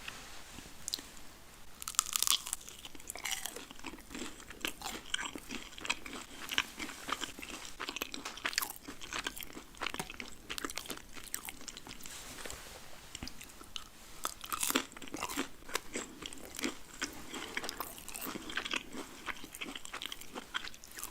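A person biting and chewing a burger and french fries close to the microphone, with crunchy chewing throughout. The sharpest bites come about two seconds in and again around fifteen seconds.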